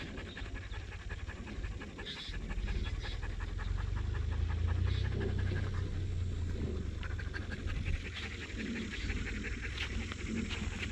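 A tazi sighthound panting rapidly and evenly with its tongue out to cool off in the heat, over a steady low rumble.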